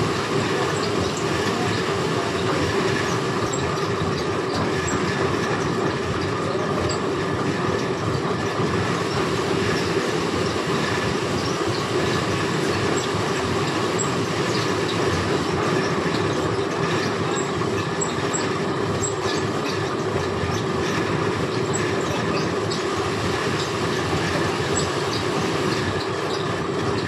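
Fabric checking machine running continuously, cloth feeding through its rollers, a steady mechanical rumble and rattle with light ticks here and there.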